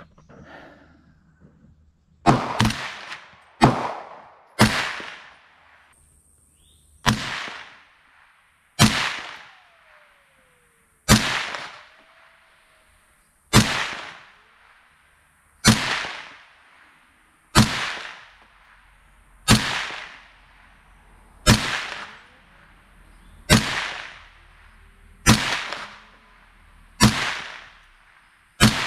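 A .300 Blackout AR-15 rifle firing about fifteen single semi-automatic shots, each followed by a short echo. The first few come about a second apart, then they settle into an even pace of roughly one shot every two seconds.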